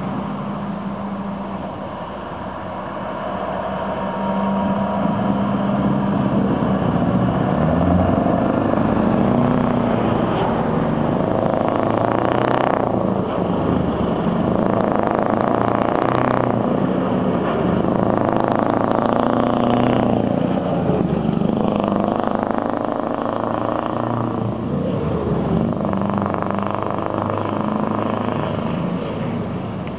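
Scania R500 truck's V8 diesel engine pulling a loaded truck-and-trailer combination away hard, its pitch climbing and dropping back at each gear change about four times. It grows louder as the truck comes past and fades as it drives off.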